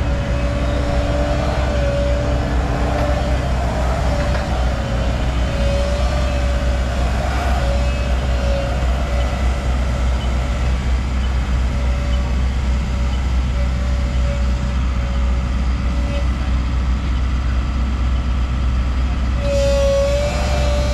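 Cat excavator's diesel engine running steadily while the boom works, a low drone with a wavering whine over it that drops out for a few seconds near the end and then returns.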